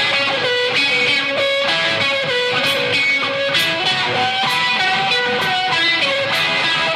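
Instrumental rock music: a guitar picking a melodic line over regular percussive hits, with no heavy bass.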